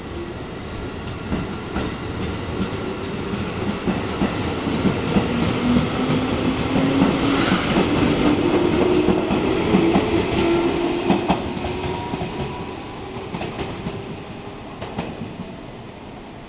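Electric local train pulling out of the station and running close past: wheels clacking over rail joints and a whine rising in pitch as it gathers speed. The sound swells to its loudest about halfway through, then fades as the last cars go by.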